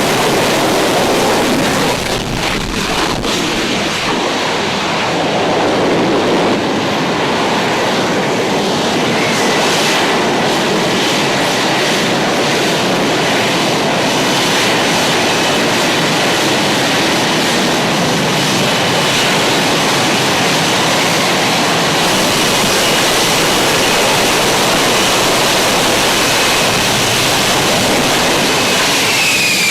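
F-35A Lightning II's single Pratt & Whitney F135 afterburning turbofan, a loud, steady rush of jet noise as the fighter flies its display. Near the end a whine falls in pitch as the jet passes.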